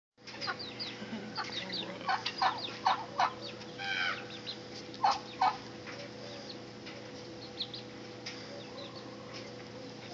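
A backyard poultry flock of chickens, guinea fowl and turkeys clucking and calling. There are many short, sharp calls over the first half, a longer call about four seconds in and two loud calls just after five seconds, then fewer calls. A steady faint hum runs underneath.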